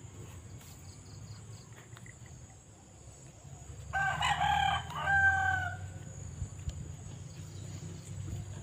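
A rooster crowing once, about four seconds in, a call of roughly two seconds in two parts, over a steady low background hum.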